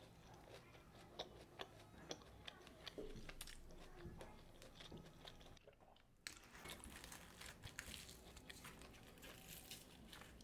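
Faint, close-miked chewing and biting of puri with mutton curry: irregular small crunches and wet mouth clicks, with a brief gap about six seconds in.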